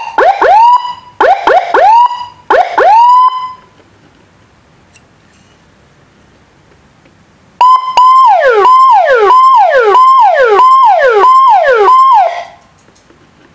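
Electronic multi-tone siren module sounding through a horn loudspeaker. It gives a few quick rising whoops, then stops for several seconds. It then sounds a repeating pattern that holds a high tone and drops sharply, a little under twice a second, before cutting off.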